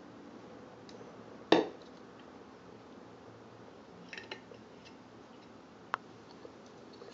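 Handling sounds of hard objects: one sharp knock about a second and a half in, then a few light clicks and taps, and a single sharp click near the end.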